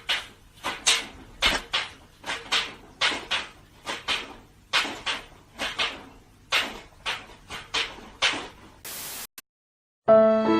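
A rapid, irregular series of short, sharp scraping or knocking strikes, roughly two a second, then a brief hiss and a gap. Violin music starts right at the end.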